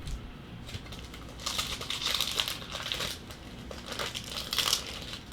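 Plastic wrapper of a trading-card pack crinkling as it is handled and opened, in a run of rustling bursts from about a second and a half in until near the end.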